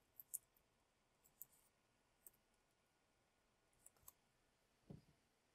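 Near silence broken by a handful of faint, spaced-out computer keyboard clicks as a short expression is typed.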